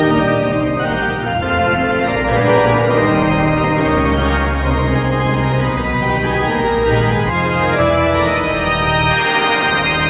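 Hockey arena organ, Hammond-style, playing a goal celebration tune.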